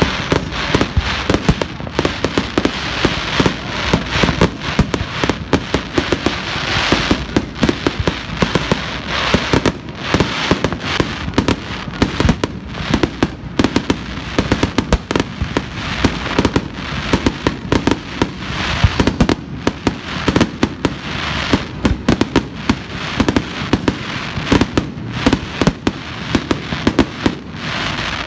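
Aerial fireworks bursting in a rapid, unbroken barrage: several sharp bangs a second over a continuous crackle.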